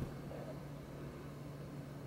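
Quiet room tone with a faint steady low hum and no distinct events.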